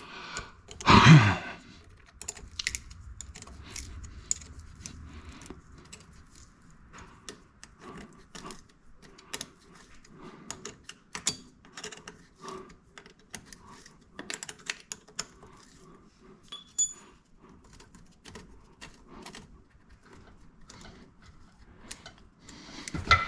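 Hand tools and metal fittings clicking and clinking in irregular light taps as stuck fuel-line fittings are worked loose. A short vocal sound about a second in, and a single ringing metallic ping about two-thirds of the way through.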